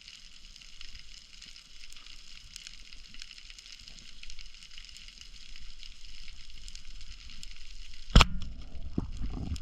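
Underwater crackling from snapping shrimp on the reef, steady and dense. About 8 seconds in comes one sudden loud sharp crack, followed by low rumbling and knocking.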